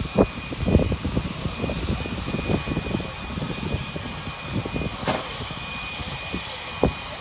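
Steam locomotive moving slowly in, with a steady hiss of venting steam and irregular low thumps underneath.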